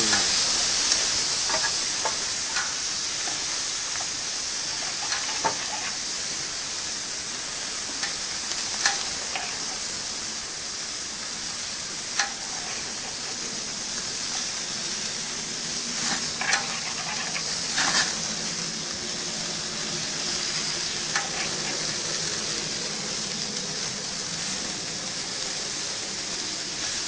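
Tri-tip roast sizzling on a gas grill over a low flame: a steady high hiss broken by scattered crackles and pops of dripping fat and juices, several close together about two-thirds of the way in.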